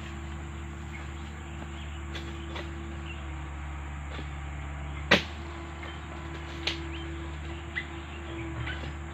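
A few sharp cracks from a long-poled harvesting sickle cutting into oil palm fronds, the loudest about five seconds in. A steady low hum runs underneath.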